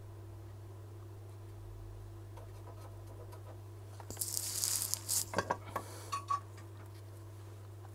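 Steady electrical hum from bench equipment. About four seconds in, a short rustle followed by a handful of light clicks and taps as small tools and parts are handled at the repair bench.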